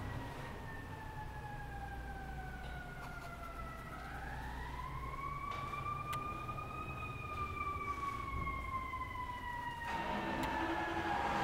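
Emergency vehicle siren in a slow wail, its pitch falling, rising, then falling again, over a low rumble. A louder noise comes in near the end.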